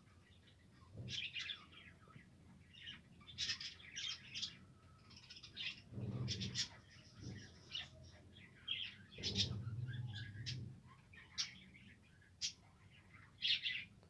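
A flock of budgerigars chirping and warbling, many short, high calls overlapping throughout. A low rumble sits underneath twice, about six and about nine seconds in.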